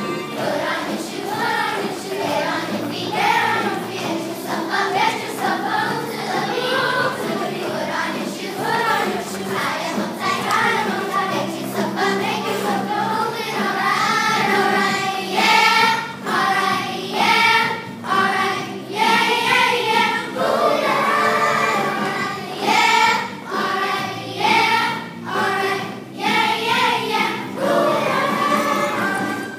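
Elementary school children's chorus singing together with accompaniment, in rhythmic sung phrases.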